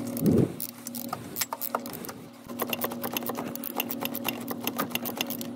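A power ratchet driving in the engine cover bracket screws: a steady motor whir with rapid ratchet clicking.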